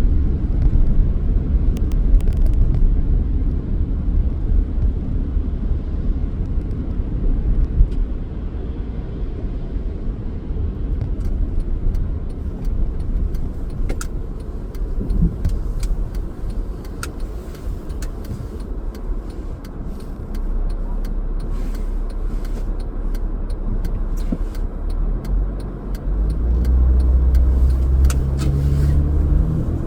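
Car driving on city streets: steady low engine and road rumble, with scattered sharp clicks and ticks in the second half. Near the end the engine note rises as the car speeds up.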